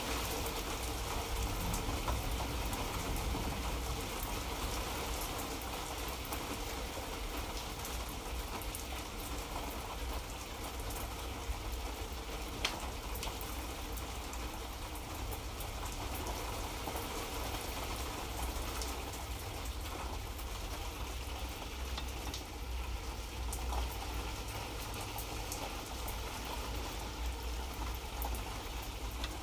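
Light rain falling steadily: an even patter with scattered single drop ticks, over a steady low rumble.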